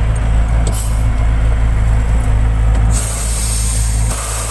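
Truck engine running steadily, heard from inside the cab, with a hiss about three seconds in that lasts about a second.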